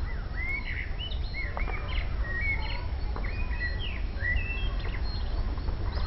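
Several wild songbirds singing and chirping at once: quick whistled notes that rise and fall, overlapping one another. A steady low rumble runs underneath.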